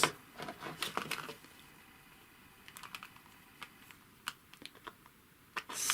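Light, irregular clicks and taps of small sewing-machine parts and a screw being handled during reassembly, a few louder in the first second, then sparse faint ticks.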